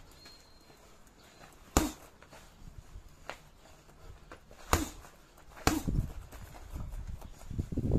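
Boxing gloves punching a hanging heavy bag: about half a dozen irregularly spaced thuds, single shots and a quick pair, with a short flurry near the end.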